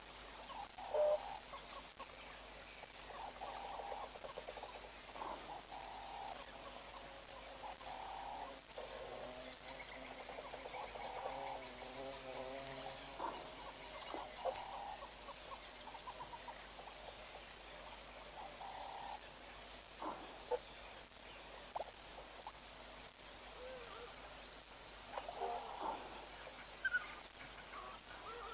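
Insect chirping steadily, a high chirp about twice a second without pause, with fainter lower calls coming and going behind it.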